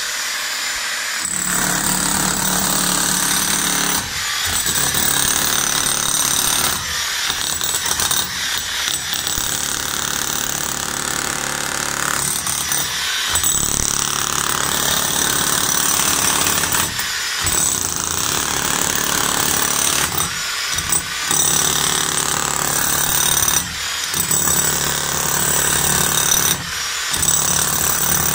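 Corded electric demolition hammer with a chisel bit hammering into a concrete floor, breaking up the slab. It runs in long bursts with brief pauses every few seconds.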